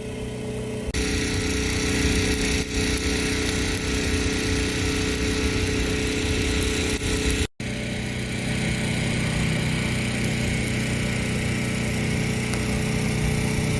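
A motor or engine running steadily with a constant hum, the sound changing abruptly about a second in and cutting out briefly midway.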